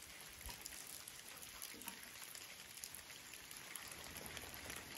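Light rain falling on a shallow creek: a faint, even hiss with many small scattered drops.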